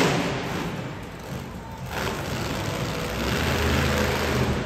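Monster truck engine revving, easing off about a second in and building again toward the end, with music playing underneath.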